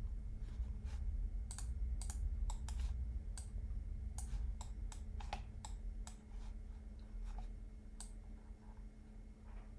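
Irregular clicking of a computer keyboard and mouse, several clicks a second and sparser near the end, over a steady low hum.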